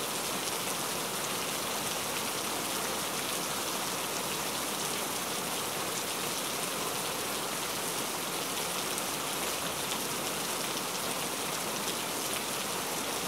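Heavy rain falling steadily on surfaces: a dense, even hiss of drops with no thunder.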